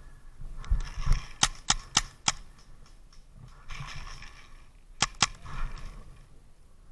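Sharp shots from a skirmish game gun: four in quick succession about a third of a second apart, then two more about three seconds later, over light rustling.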